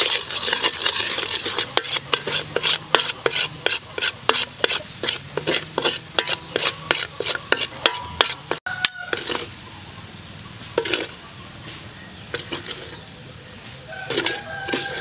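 A spoon scraping and stirring thick paste around an aluminium wok in quick, regular strokes, about two or three a second. After about nine seconds the strokes thin out to a few scattered scrapes.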